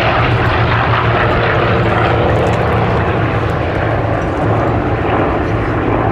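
Three Hawker Sea Fury piston-engined fighters flying past in formation, their propeller engines making a loud, steady, deep drone that eases slightly in the second half.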